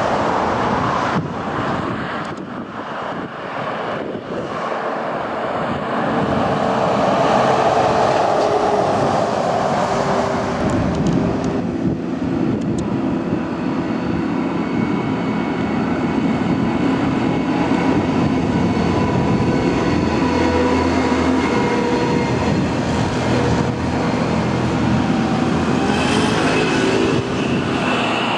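Road traffic going past close by: an orange wheeled excavator driving along with cars, its diesel engine and tyres giving a steady, loud noise with a held whine.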